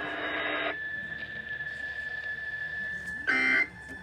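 Emergency Alert System end-of-message data bursts over the radio: two short buzzy bursts about a second apart near the end, over a steady high whine.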